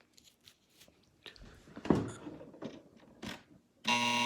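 AM broadcast through a vintage tube radio's speaker: a near-quiet gap between programme items with a few faint clicks and knocks. Near the end, a steady electric buzz sets in.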